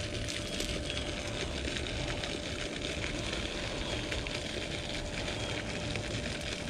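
Steady splashing hiss of a pond aerator fountain, with a faint steady hum underneath and a few faint ticks.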